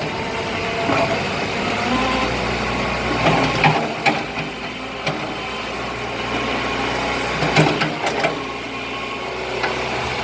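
SK04 hydraulic excavator working on test after a hydraulic system recondition: a steady diesel engine note with several sharp knocks, a few seconds in and again later.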